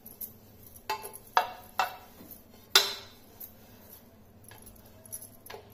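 Scattered sharp metallic clinks and taps, about five of them, the loudest about three seconds in: a metal rolling pin and bangles knocking against an aluminium rolling board while balls of dough are rolled out.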